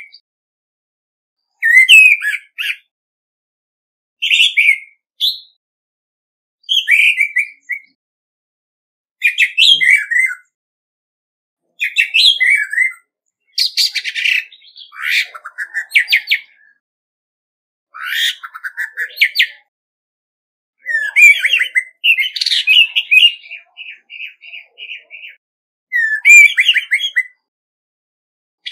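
Male orange-headed thrush singing its challenge song: short, varied whistled phrases about every two seconds, with longer, denser run-on phrases near the middle and again about three-quarters through.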